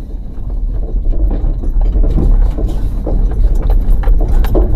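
Car driving slowly over a rough gravel riverbed track: a low rumble with irregular rattles and knocks, getting louder about a second in.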